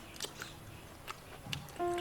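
Scattered faint clicks and taps, then background music with held notes starting near the end.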